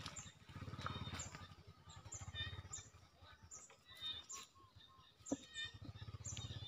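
Small animal's short high-pitched chirps, repeating about twice a second, over a low rumble.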